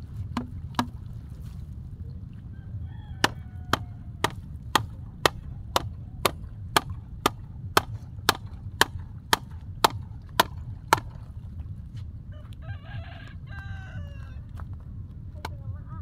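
A wooden stake being pounded into hard, dry ground: sharp knocks, about two a second for roughly eight seconds, then stopping. A low wind rumble runs underneath, and a few short high-pitched calls sound near the start and after the knocking ends.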